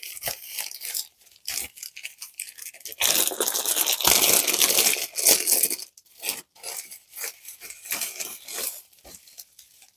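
Plastic mailer bag being torn open by hand, its film ripping and crinkling, with the densest, loudest ripping about three to six seconds in and scattered crinkles after.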